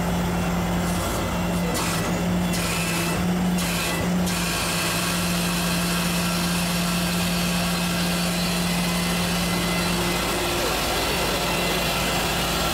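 Steady engine drone with a constant low hum running unchanged throughout.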